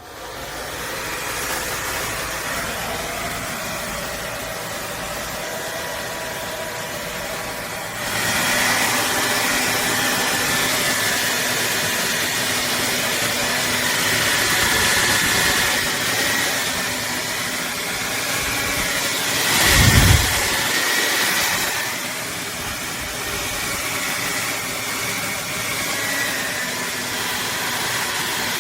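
Revlon Turbo 1875-watt hair dryer switched on and running, a steady rush of air with a faint whine. It gets louder about eight seconds in, with a brief low rumble about twenty seconds in.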